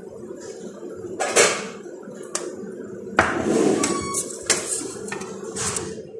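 Several sharp knocks and clatters of kitchen utensils and pans, the loudest about a second and a half in, over a steady low hum.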